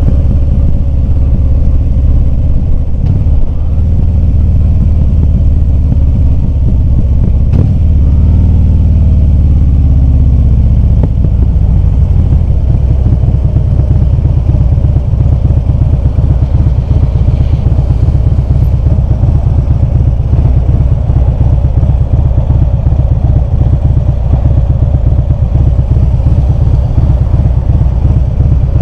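2015 Harley-Davidson Ultra Limited's Twin Cam 103 V-twin running on the move. The engine note drops as it eases off about eight to eleven seconds in, then runs on at a lower, steadier note.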